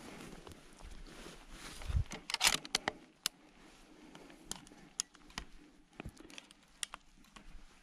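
Footsteps of a person walking through forest undergrowth: irregular rustling and crunching with scattered sharp cracks, and a louder brushing rustle about two seconds in.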